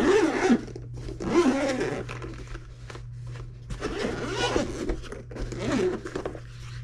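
Zipper on a DJI Mavic Mini Fly More fabric carrying case being run around the case's edge in several drawn-out strokes, over a steady low hum.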